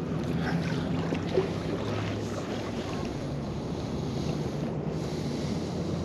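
Wind buffeting the microphone over water lapping in a shallow river, a steady rushing noise, with one short knock about a second and a half in.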